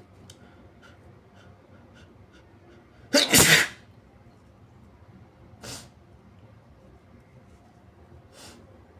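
A person sneezes once, loudly, about three seconds in. Quieter short breaths follow twice afterwards.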